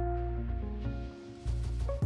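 Background music: plucked guitar over a bass line, dropping away briefly about a second in.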